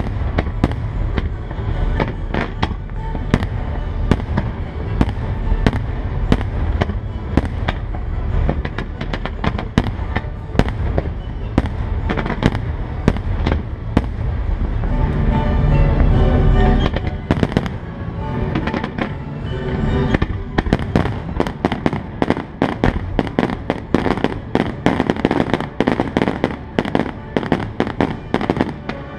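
Aerial fireworks shells and comets bursting in quick succession, with sharp bangs and crackle that come thicker and faster in the last third, over the music of a pyromusical show.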